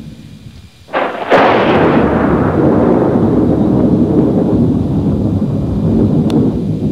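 Thunder: a sharp crack about a second in, then a long rolling rumble that slowly fades.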